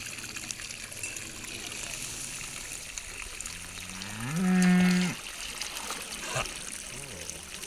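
A cow mooing once midway through: one long low call that rises in pitch and then holds steady before cutting off.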